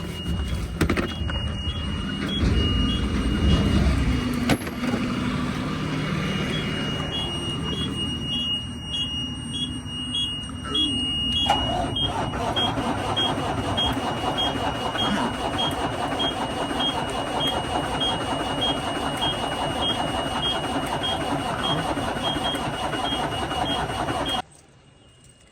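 Idling semi-truck diesel engine with a steady high electronic beeping, short pips about twice a second over a thin constant tone. The sound cuts off suddenly near the end.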